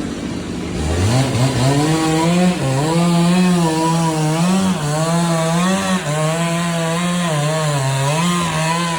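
A chainsaw starts up about a second in and runs hard, its pitch wavering up and down as the load changes. Underneath is a steady hiss of heavy rain.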